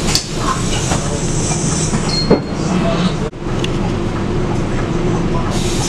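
Inside a Scania K280UB city bus on the move: its 9.3-litre five-cylinder Scania DC9 diesel and ZF EcoLife automatic gearbox running with a steady drone. A sharp knock comes just over two seconds in, and the sound drops out briefly a little after three seconds.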